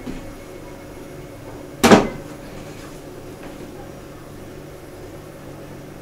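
A single loud knock about two seconds in, with a short ringing tail: a Bosch refrigerator's plastic crisper drawer being set down on a table.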